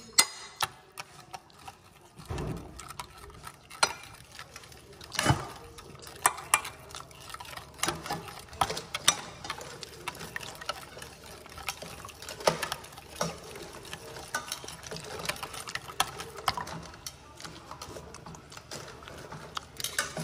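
Metal spoon stirring seasoning into melted butter in a glass Pyrex measuring cup, with irregular light clinks and scrapes of the spoon against the glass.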